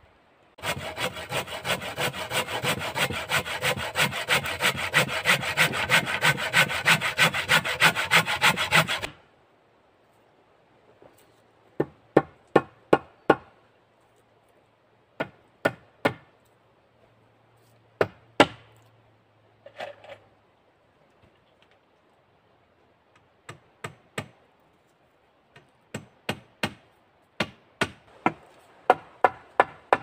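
Hand saw cutting through a wooden pole in quick, even strokes, about five a second, for roughly eight seconds. After a pause come sharp blows on wood, singly or in small groups, then a quick run of them near the end.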